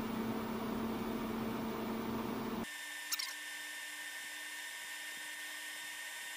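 Steady electrical hum of a Renogy inverter charger powering an air fryer. About two and a half seconds in, the hum cuts out abruptly as the inverter shuts off on hitting its 12-volt low-battery cutoff, and a faint click follows. A quieter hum with a faint whine remains after it.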